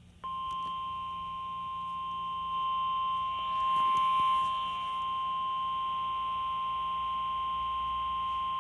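NOAA Weather Radio warning alarm tone: a single steady 1050 Hz tone that starts a moment in and holds unchanged. It is the attention signal that opens a broadcast Emergency Alert System warning, here a flood warning.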